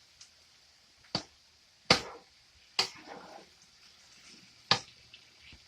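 Kitchenware knocking and clinking during cooking: four sharp knocks, spaced irregularly, two of them louder than the rest.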